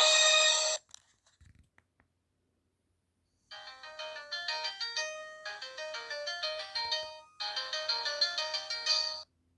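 Nokia 2760 Flip phone playing ringtone melodies through its speaker. One tune cuts off just under a second in, a few faint clicks follow, and then a quieter tune starts about three and a half seconds in, pauses briefly once and stops near the end.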